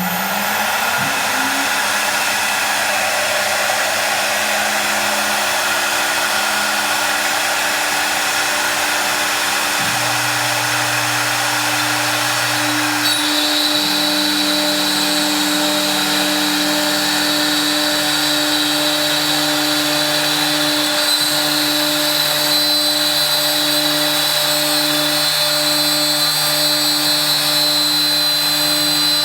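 A woodworking power tool running steadily with a loud, even whir, shifting pitch a few times along the way.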